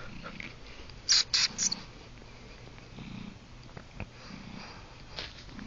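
Domestic cat purring close up, the purr swelling and easing in slow breath cycles about every second and a half. Three short noisy bursts, the loudest sound, come about a second in.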